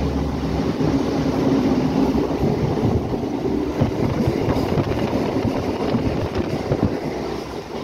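Suburban local train running, heard from inside the carriage: a steady rumble with a continuous rattle of the wheels and coach on the track.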